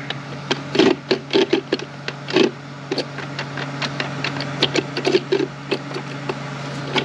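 Steel gear-train parts of a Ford 10R80 ten-speed automatic transmission clicking and clinking irregularly as they are turned and wiggled by hand to drop onto their splines inside the case; the assembly is not yet seated. A steady low hum runs underneath.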